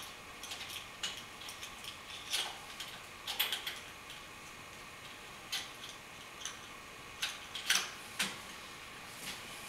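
Irregular light clicks and clinks as a chain-hung two-tube LED shop light and its chain and hook are handled and adjusted.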